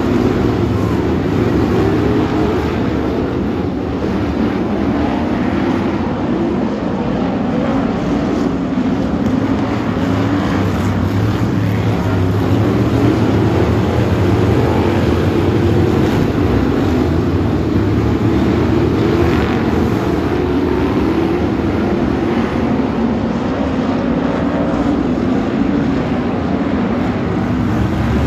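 A pack of BriSCA F1 stock cars racing round the oval, their V8 engines running flat out together in a loud, unbroken blare.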